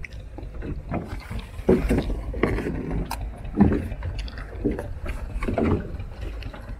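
Steady low rumble of a fishing boat at sea, with men's voices talking now and then.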